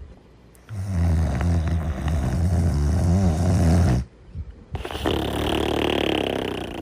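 Snoring in sleep: a long, low, rattling snore lasting about three seconds, then after a brief pause a softer, breathier breath.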